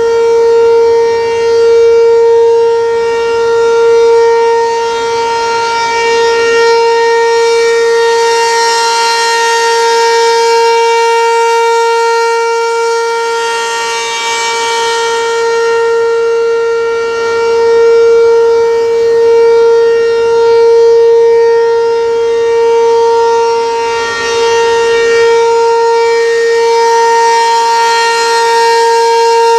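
ACA P-15 outdoor warning siren sounding the steady Alert signal, one held tone with no rise or fall in pitch. Its loudness swells and fades every few seconds.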